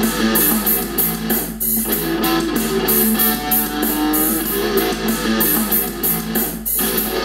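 Guitar-led music track playing at maximum volume through the HP EliteBook x360 1030 G7 laptop's built-in speakers, with a steady quick high tapping beat. It measures about 80 dB on a sound level meter.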